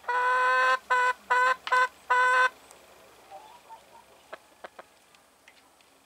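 Domestic brown hen calling: a loud run of five squawking calls held at one pitch, the first longer and the rest short, over the first two and a half seconds, then a few faint clicks.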